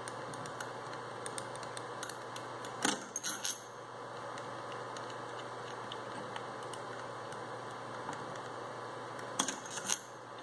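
Metal parts of a Mitsubishi starter motor clinking as it is taken apart by hand, its end cover and long through-bolts knocking against the steel housing. There are two short bursts of clinks, about three seconds in and near the end, with faint ticks between, over steady background noise.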